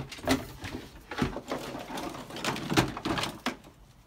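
Plastic toys knocking and clattering as a child rummages through a toy chest, with several sharp knocks, the loudest about three seconds in.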